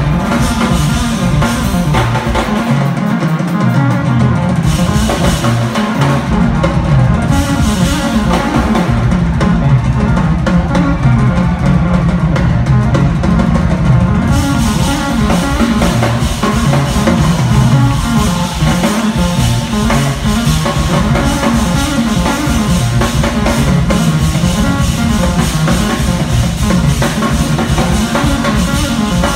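Live jazz-fusion band playing loud: drum kit, guitar and keyboards. The deepest bass thins out briefly a few seconds in, then comes back.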